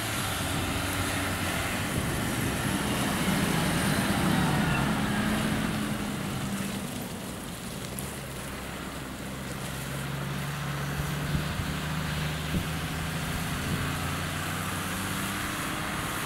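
Farm tractor's diesel engine running under load as it hauls a sugar cane haulout bin, a steady drone that swells to its loudest about four seconds in, then eases and settles to a lower pitch.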